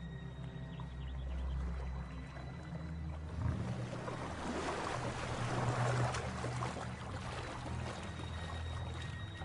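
River water splashing and churning, swelling about three and a half seconds in and easing off by about seven seconds, over a low sustained music drone.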